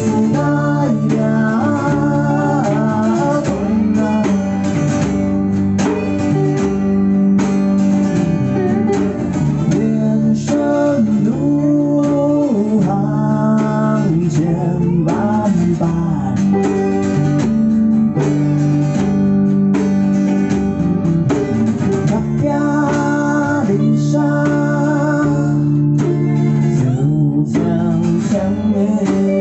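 Live band music: a male voice singing over a strummed acoustic guitar, backed by electric guitar and bass guitar.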